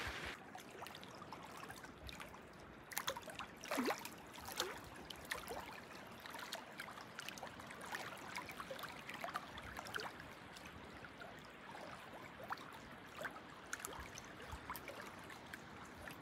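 Small waves lapping at a lake shoreline: a faint steady wash with many scattered small splashes and clicks, a few louder ones about three to four seconds in.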